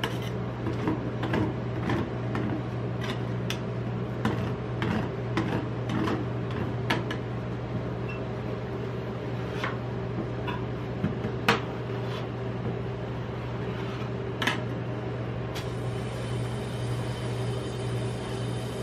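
Metal spatulas tapping, chopping and scraping on the stainless-steel cold plate of a rolled ice cream machine, in irregular sharp clicks and scrapes, with fewer of them in the last few seconds. Under it runs the steady low hum of the machine.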